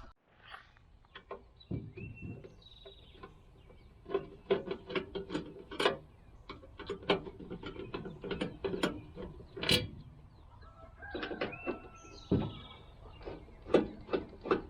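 A Phillips screwdriver backing screws out of the pellet grill's metal control panel: a run of sharp, irregular clicks and ratcheting, densest in the middle and again near the end.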